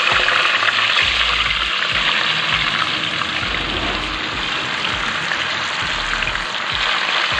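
Blocks of firm tofu deep-frying in hot oil in a wok: a loud, steady sizzle.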